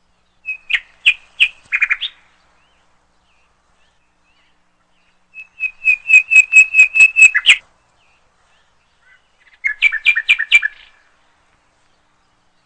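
A songbird chirping in three short phrases of quick, repeated sharp notes: a brief phrase about a second in, a longer run of about a dozen even notes in the middle, and a short burst near the end, with silence between.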